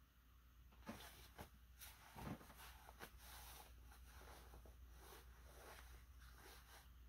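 Near silence: room tone with a steady low hum and a few faint clicks and rustles.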